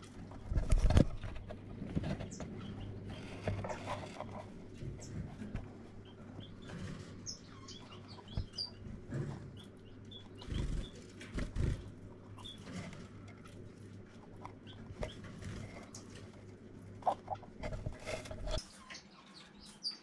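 Handling noise from an egg-candling light being worked among the dry grass of a finch nest box: rustling and a few dull knocks, the loudest about a second in. A steady low hum underlies it and stops near the end. Finches chirp faintly and sporadically throughout.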